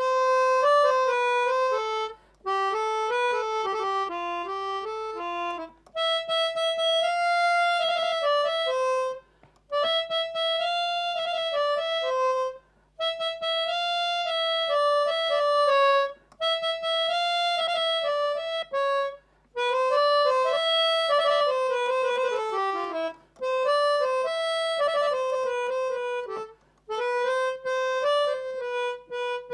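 Melodica played solo: a reedy single-line melody in phrases of about three seconds, each separated by a short gap.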